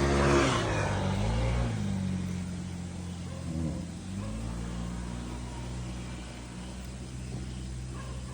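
An engine running steadily with a low hum. Its pitch rises and falls a couple of times in the first four seconds as it speeds up and slows, then holds steady.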